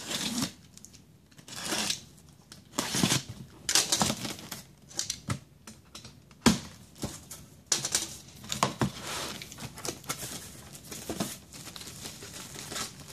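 Cardboard box being unpacked: a series of irregular tearing and scraping rustles as the taped lid and flaps are worked open, with a sharp snap about six and a half seconds in, then plastic wrapping crinkling as the contents are handled.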